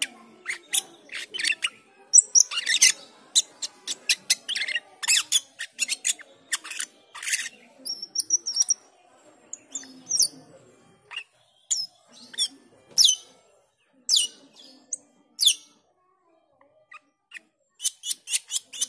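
Asian glossy starling calling: a fast run of sharp chips and short whistles, thinning to single down-slurred whistles around the middle, then a fresh burst of rapid chatter near the end.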